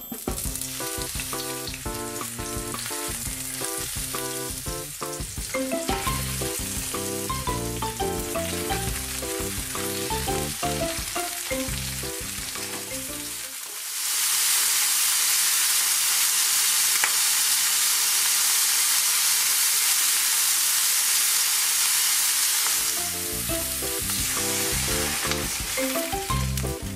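Sausages and sliced eggplant sizzling in hot oil in a wok, with background piano music over it. About halfway the music drops out for several seconds, leaving loud frying alone, and the music returns near the end.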